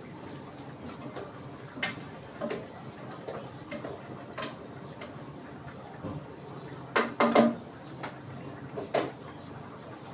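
Cutlery clinking and knocking against dishes: scattered short clatters, with the loudest cluster of knocks about seven seconds in.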